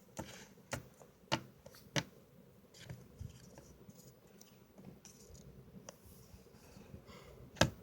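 A few sharp, light clicks and taps from small plastic toys being handled: four spaced out over the first two seconds, then a louder one near the end.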